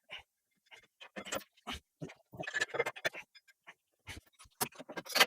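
Irregular metal clicks, knocks and scrapes of new brake pads being fitted into a brake caliper by hand, growing busier and louder near the end.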